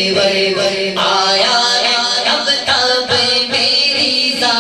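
A man singing a naat, a devotional Urdu song in praise of the Prophet, into a microphone.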